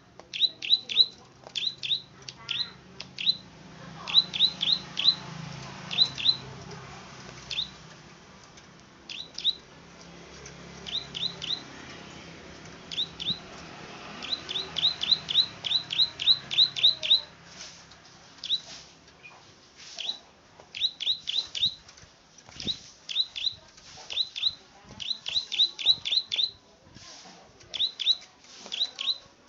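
Plain prinia (prenjak padi) giving its sharp 'klik-klik' call: short, high, quickly falling notes in rapid runs of two to eight, repeated after brief pauses.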